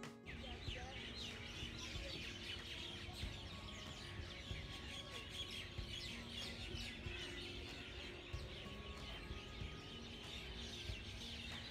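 Many small birds chirping and twittering at once, a dense, continuous chorus of short high calls.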